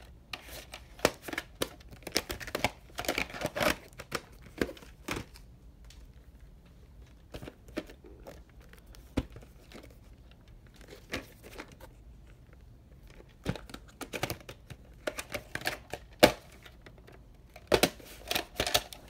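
Plastic VHS clamshell cases and a cassette handled on a bed: irregular clicks, taps and rustling as a tape is slid into a case and cases are picked up and turned over, with short pauses between.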